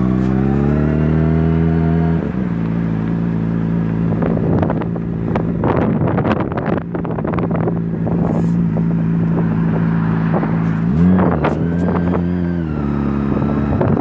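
Honda CBR600RR inline-four engine running under way. Its pitch climbs, drops sharply about two seconds in, holds steady, shifts again near the end, and then starts to climb once more, like revs rising and falling through gear changes. Wind buffets the microphone through the middle.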